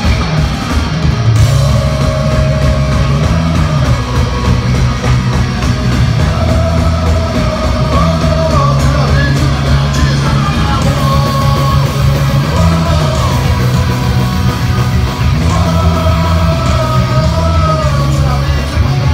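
A punk rock band playing live and loud, with guitars, bass and drums, and voices singing long held notes over the band.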